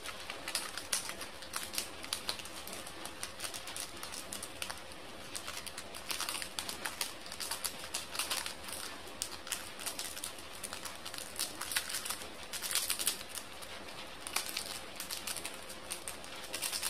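Small pink rat-poison granules being tapped out of a torn foil sachet, clicking irregularly as they drop onto a hard tabletop, with clusters of clicks now and then.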